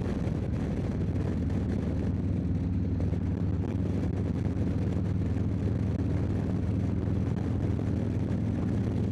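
Harley-Davidson touring motorcycle's V-twin engine droning steadily at a 70 mph highway cruise, mixed with constant wind rush on a helmet-mounted microphone.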